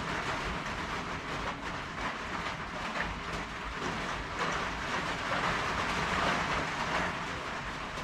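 Rain falling on a tin roof: an even, dense patter, a little louder around the middle.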